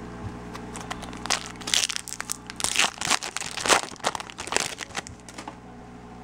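Foil wrapper of a 2013 Bowman Chrome baseball card pack crinkling as it is opened and the cards are pulled out: a run of irregular, sharp crinkles starting about a second in and dying away near the end.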